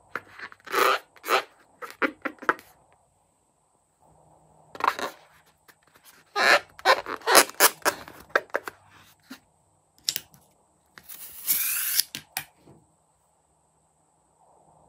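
Rubber squeaks from fingers squeezing and rubbing a liquid-filled latex balloon, coming in several clusters of short squeaks, with a longer, denser squeak near the end.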